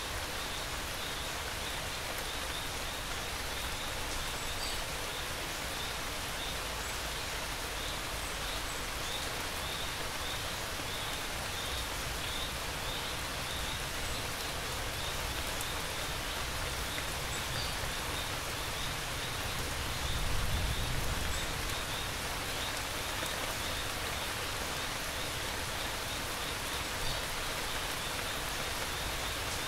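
Steady rain falling, with crickets chirping in a fast, regular pulse and a short low rumble of thunder about two-thirds of the way in.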